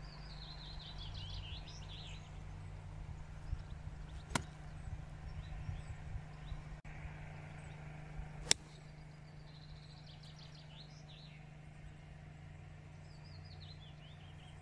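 Crisp click of a 9-iron striking a golf ball off the tee about eight and a half seconds in, the loudest sound; a lighter click comes about four seconds in. A songbird sings short chirping phrases three times over a low steady hum.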